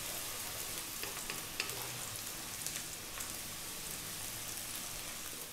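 Chopped onion and garlic sizzling in hot oil in a wok over high heat, stirred with a wooden spoon. It is a steady hiss with a few small crackles.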